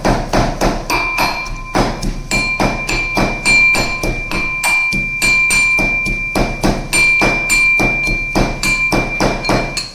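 Metal pestle pounding fresh ginger in a small metal mortar, a rapid run of knocks at about three to four strikes a second. The mortar rings with a steady metallic tone between strokes. The ginger is being crushed to add to boiling tea.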